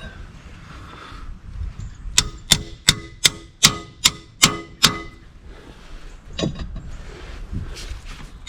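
Hand tools working on a diesel engine's cylinder head bolts: a run of about eight sharp metallic clicks, roughly three a second, each ringing briefly, then a fainter click a little later.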